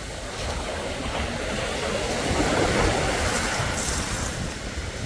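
Sea waves washing in on a beach, a rushing surf that swells to its loudest about halfway through and then eases back.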